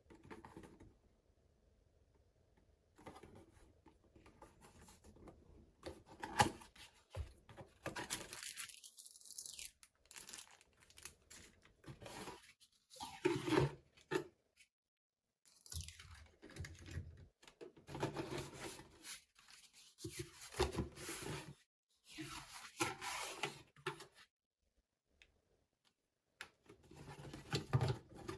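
Plastic packaging being torn and crinkled open by hand, in irregular bursts with short pauses.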